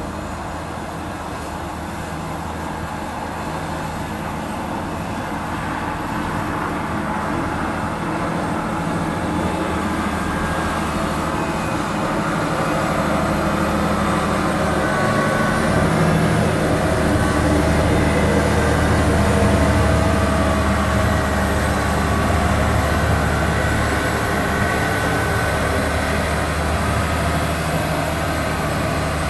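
Diesel engine of a Volvo motor grader running steadily as it plows snow, growing louder as it comes closer and loudest about two-thirds of the way through.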